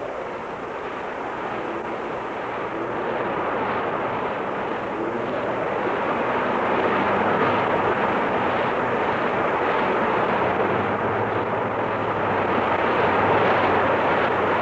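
Gale-force wind and breaking lake waves: a steady rushing surf noise that grows gradually louder over the first several seconds.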